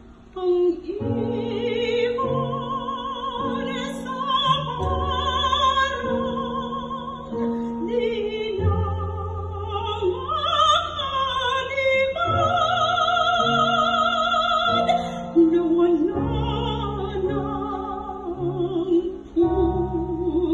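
A woman singing a slow Tagalog song with wide vibrato on long held notes, over instrumental accompaniment with sustained low notes.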